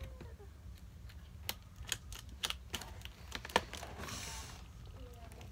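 Scissors snipping at plastic zip ties and packing tape: a run of sharp, irregular clicks, with a brief rustling scrape about four seconds in.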